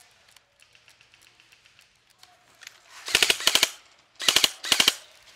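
Airsoft gun firing on full auto in three bursts close by, a longer burst about three seconds in and two short ones near the end, each a fast run of sharp snapping shots.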